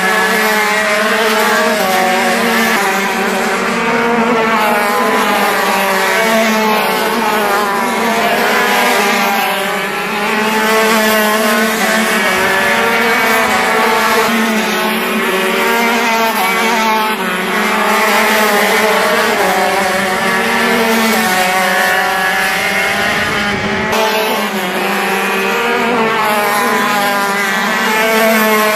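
Racing kart engines at full race pace, more than one at once, their high-pitched running rising and falling as the karts brake into corners and accelerate out and past.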